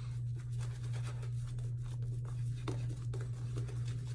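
Synthetic shave brush working hot shaving lather, a run of soft, faint scratchy strokes over a steady low hum.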